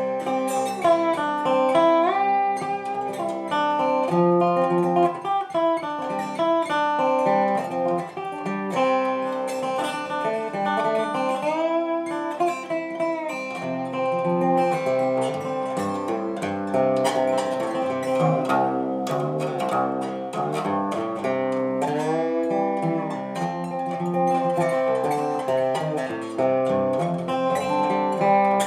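Background music: acoustic guitar playing a melody with slides, in a blues style.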